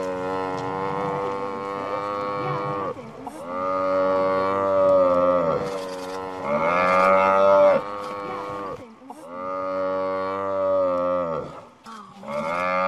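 A male lion roaring in a series of long, drawn-out calls, each two to three seconds long and falling away at its end, with short breaks between them.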